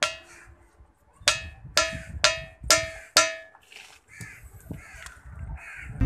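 The bell rock, a boulder that rings like a church bell, struck again and again with a small stone held in the hand: sharp clinks, each with a short bell-like ring, about six strikes in the first three and a half seconds.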